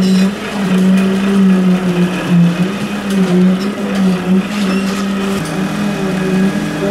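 Concrete mixer truck's diesel engine running steadily under load with a droning hum, driving the drum and conveyor during a concrete pour.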